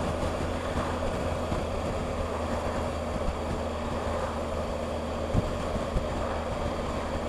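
Motorcycle riding at a steady speed: the engine's steady drone and wind rush on the bike-mounted microphone, with a faint knock about five seconds in and another a moment later.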